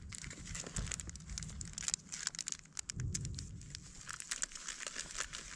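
Plastic packet of besan (gram flour) being handled and crinkled, an irregular run of sharp crackles.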